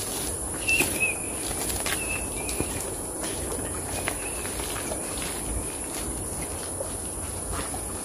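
Tropical forest ambience: a steady, high-pitched insect drone, with a few short bird chirps in the first couple of seconds.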